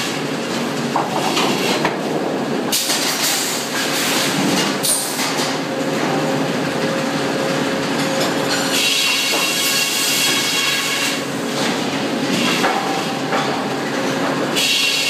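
Sawmill circular headsaw running as a shotgun-feed carriage drives a log through it, making a cut. A high steady whine gives way to rougher, denser noise twice, from about three seconds in and again near eleven seconds.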